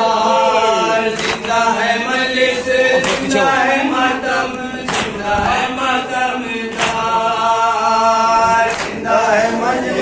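A group of men chanting a noha in unison, with sharp hand strikes of matam (chest-beating) keeping time about every two seconds.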